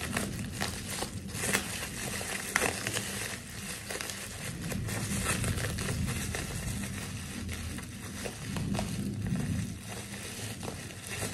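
Plastic bubble-wrap packaging being pulled open and unwrapped by hand: continuous crinkling and rustling with many short sharp crackles.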